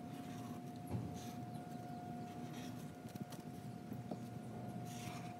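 Felt-tip marker scratching across construction paper in short strokes as it traces around the base of a cardboard tube, with a single light knock about a second in. A steady faint hum runs underneath.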